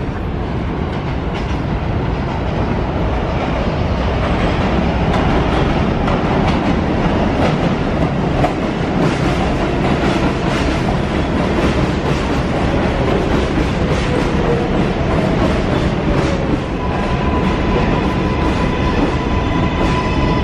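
New York City Subway 7 train pulling into an elevated station, its cars running past with a loud, steady rumble and rhythmic clicking of the wheels over rail joints. A steady high squeal sets in near the end as the train slows.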